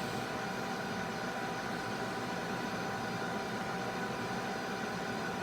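Steady whir of a heat gun's fan blowing on its high setting as improvised air assist, together with the xTool F1 Ultra laser running a cutting job, with a few faint steady whining tones over the rushing air.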